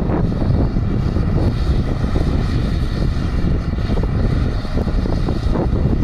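Combine harvester running steadily as it harvests soybeans: a continuous low rumble.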